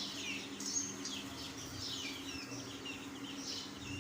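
A flock of baby chicks peeping continuously, many short downward-sliding cheeps overlapping one another, over a steady low hum.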